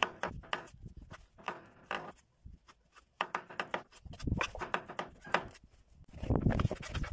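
Chef's knife dicing pickled cucumbers on a bamboo cutting board: quick, irregular taps of the blade on the wood, pausing for about a second near the middle. A few heavier low thuds come near the end.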